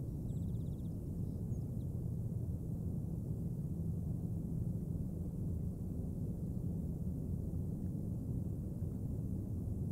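Steady low outdoor rumble from a riverside camera microphone, unchanging throughout, with a faint brief run of rapid high ticks about half a second in.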